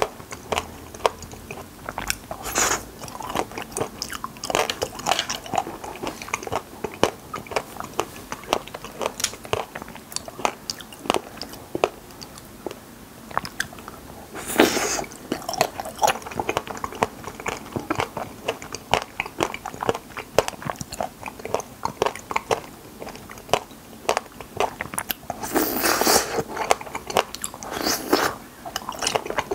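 Close-up eating of wild raspberries: lips and teeth pulling the berries off wooden skewers, then wet chewing with many short mouth clicks. Stronger bites come about two seconds in, near the middle, and twice near the end.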